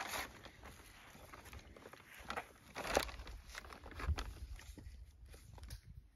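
Plastic bag rustling and crinkling as a trail register notebook is pulled out of a cubby under a rock and unwrapped, with small handling knocks and one sharper crackle about three seconds in.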